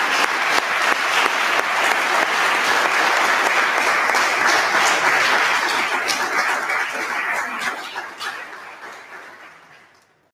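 Applause from a group of people clapping, steady at first and dying away over the last few seconds into silence.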